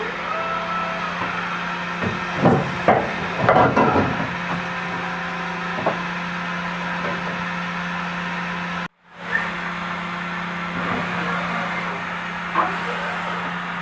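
Steady low machine hum from a powered-up CNC machining center, broken by a cluster of knocks and clunks in the first few seconds and single knocks later on. The sound drops out completely for a moment about nine seconds in.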